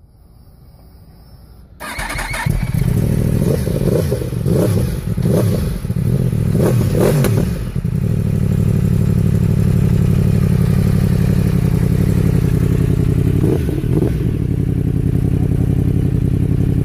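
Yamaha YZF-R1 crossplane inline-four running through an MTC de-cat pipe and exhaust muffler. It comes in about two seconds in, is blipped several times in quick short revs, then settles to a steady idle with one more brief blip near the end.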